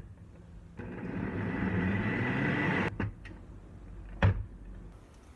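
A small appliance motor runs steadily for about two seconds and stops suddenly. A click comes before it, and a few clicks and a knock follow.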